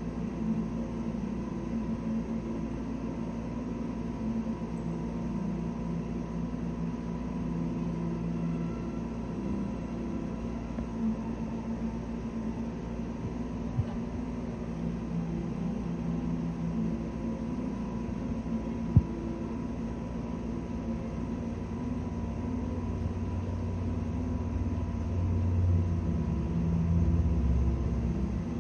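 Steady low background hum and rumble, with two single sharp clicks about halfway and two-thirds through, and a heavier low rumble near the end.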